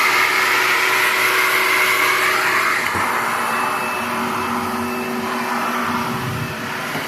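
A 16-gallon, 6.5 hp Shop-Vac wet/dry vacuum running, pulling air through a 35-foot central vacuum hose: a loud, steady rush of airflow whose pitch wavers up and down.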